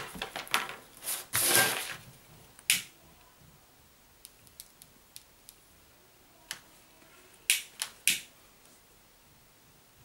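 A sheet of paper rustling as it is laid down on a table, then scattered sharp clicks, with three louder ones close together about three quarters through, from handling a gas lighter while a stripped cable wire is held in its flame.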